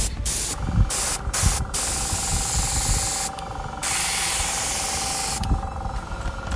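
Airbrush spraying thinned acrylic paint with a hiss of air: a few short puffs, then two long sprays with a brief break between them.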